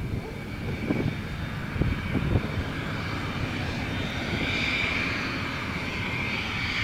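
Cessna 551 Citation business jet's twin Pratt & Whitney JT15D turbofans running with a high whine as the jet turns onto the runway. The whine grows louder about four and a half seconds in. Low wind gusts buffet the microphone in the first two seconds.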